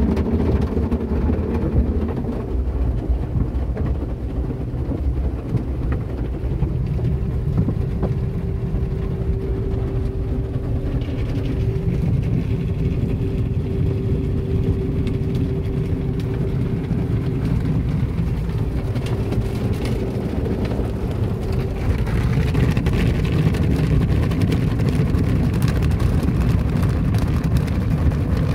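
Automatic soft-cloth car wash heard from inside the car's cabin: a steady low rumble of the wash machinery, with a hum through the middle. In the last several seconds it grows into a louder rush as the cloth strips and water sweep over the car.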